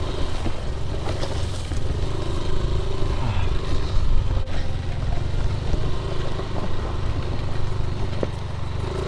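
Yamaha Aerox scooter engine running steadily as it is ridden over a rough, rocky track, with occasional clatter and scraping from the bumpy ground.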